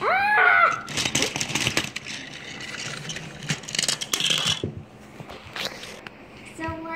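A child's short high vocal squeal, then about four seconds of quick plastic clicking and rattling from a toy train and its plastic track being handled, fading after about four and a half seconds.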